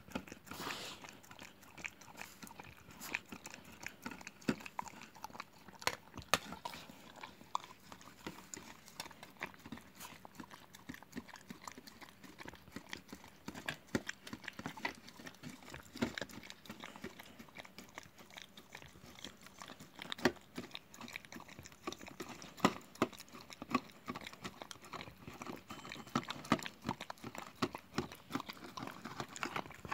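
Dog licking and lapping thick viili out of a plastic tub: an irregular run of wet smacks and clicks of the tongue against the plastic.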